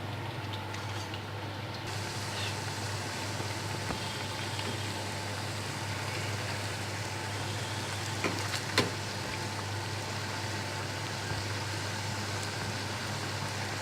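Pakon pitha deep-frying in hot oil in a karai: a steady sizzle, with two short clicks about two-thirds of the way through.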